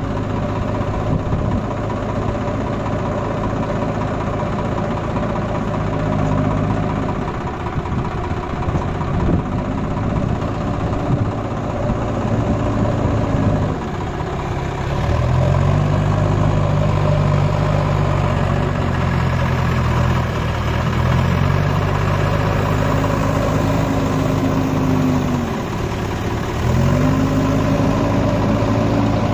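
Tractor diesel engine working under load, its revs rising and falling in about five long surges of a few seconds each as the throttle is opened and eased.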